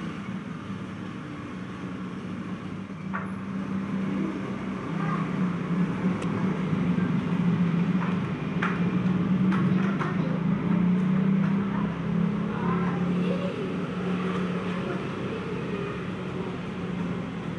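A low, steady motor hum that grows louder through the middle and eases off again, with a few light clicks over it.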